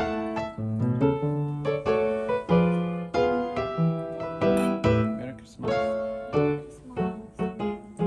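Background music: a gentle piano melody with chords, with one note struck after another.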